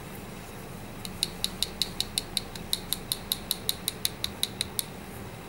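Rapid light tapping of a metal instrument against a dental model, about five sharp clicks a second starting about a second in, with a brief break midway. The tapping condenses the wet porcelain build-up on the crown, drawing its moisture to the surface.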